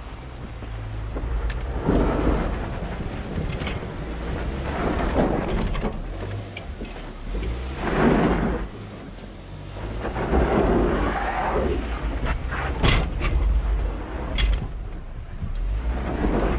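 2WD Ranger pickup driving over a rough, rocky dirt road: a steady low rumble with rough swells of tyre and gravel noise every few seconds, and several sharp knocks and rattles in the last few seconds.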